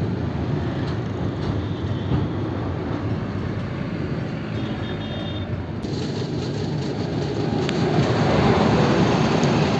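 Passenger train running on rails: a steady rumble of wheels and coaches that grows louder near the end.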